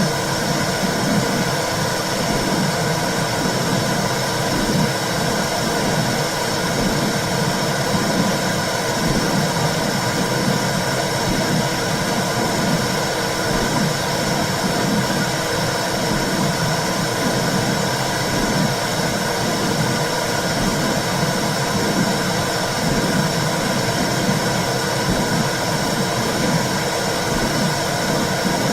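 Womb sounds picked up by a fetal doppler probe: a rhythmic, pulsing whoosh of blood flow over a steady electronic hiss and hum.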